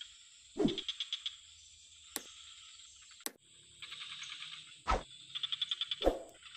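Swamp frogs calling: short rattling trains of rapid clicks, repeated every second or two, over a faint steady high hiss. A few sharp clicks and dull thumps come between the calls.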